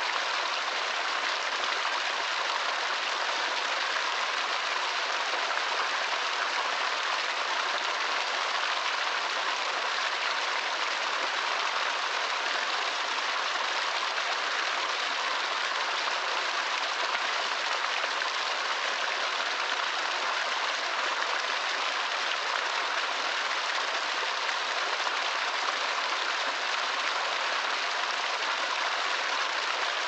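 Small woodland waterfall splashing steadily down a stream: an even, hissy rush of falling water with little low rumble.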